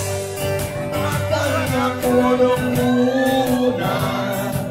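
Live acoustic band: a singer holding long, sliding notes over strummed acoustic guitars and a steady cajon beat.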